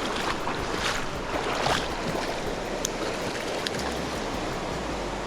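River current rushing steadily in high water after rain, with a few brief splashes.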